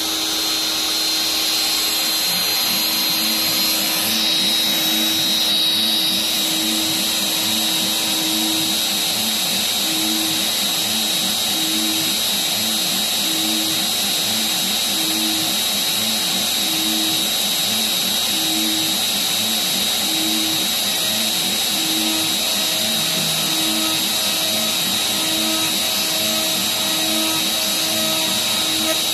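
Shapeoko CNC router's spindle running with a steady high whine while its bit cuts a truss rod slot in a wooden guitar neck. Under the whine a lower hum swells and fades in an even rhythm, about once every second and a half to two seconds.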